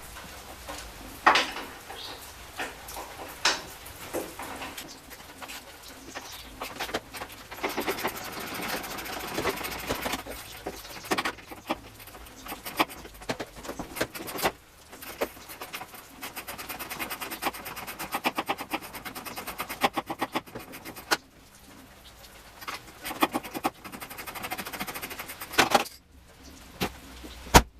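Hand ratchet working a fender bolt loose behind the door: runs of rapid clicking with scattered metal knocks and clinks of tools.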